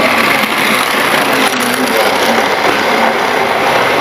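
Model railway train running past on the track: the steady whir of its motor and wheels on the rails.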